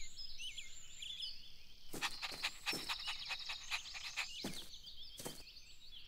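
Birds chirping in a soft garden ambience. From about two seconds in, a run of quick taps and clicks joins them.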